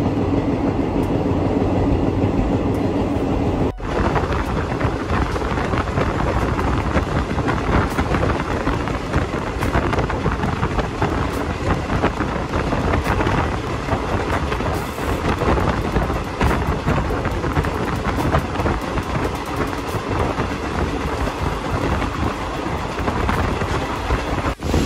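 Passenger train carriage running along the track at speed, a steady rumble of wheels on rails mixed with rushing air, with a brief break about four seconds in.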